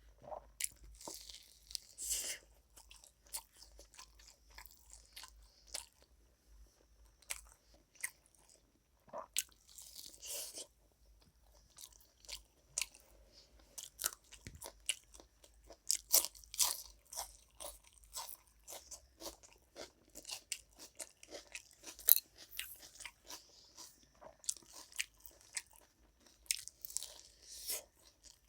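A person eating close to the microphone: irregular crunchy bites and wet chewing clicks, with a few longer crunching bursts, the sharpest about two-thirds of the way in.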